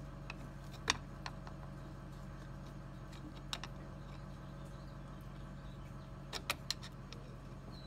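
Scattered light metal clicks and taps of a flathead screwdriver prying a tight clutch cable fitting loose, the sharpest click about a second in and a quick run of three near the end, over a steady low hum.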